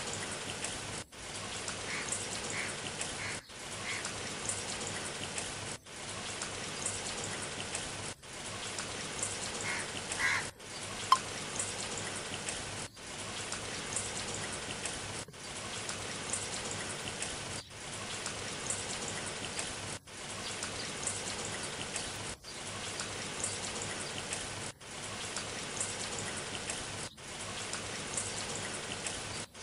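Rain sound effect: a steady patter of rain, looped, with a brief dropout about every two and a half seconds where the loop restarts. A few short, faint high chirps come through the rain, and a single sharp click about eleven seconds in is the loudest sound.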